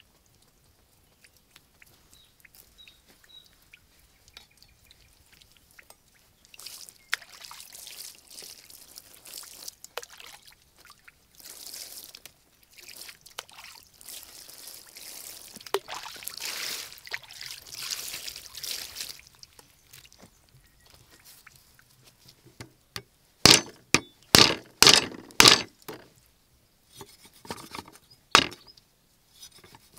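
Water splashing and pouring as produce is washed by hand in a pond. Later, a cleaver chops meat on a thick wooden chopping block: about six quick, loud strikes, then one more near the end.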